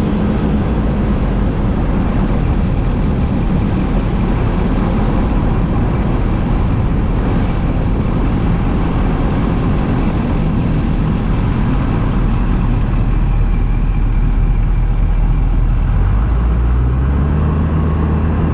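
LB7 Duramax 6.6 L V8 turbo-diesel running, with the turbocharger's billet aluminum compressor wheel giving a faint high whistle over the engine. The engine note rises near the end.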